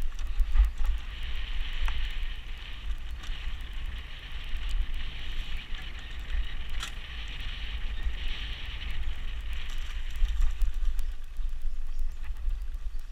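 BMX bike rolling along a dirt trail covered in dry leaves and bark, with a steady rolling hiss that swells and fades and many small clicks and rattles, under a low rumble of wind on the microphone.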